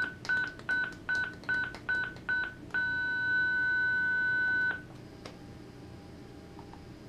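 Zoll ProPaq MD defibrillator charging to 200 joules. First comes a quick run of short beeps at one pitch, about two and a half a second. Then, once charged, a steady continuous tone sounds for about two seconds and cuts off suddenly when the shock is delivered into the analyzer.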